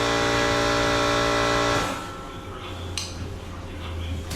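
A car horn held in one long steady honk that cuts off sharply a little under two seconds in. A short click follows about a second later.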